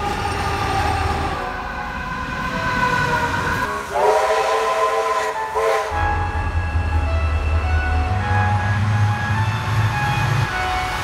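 Diesel locomotives running past, with a multi-note locomotive horn sounding for about two seconds about four seconds in. A deep engine rumble follows.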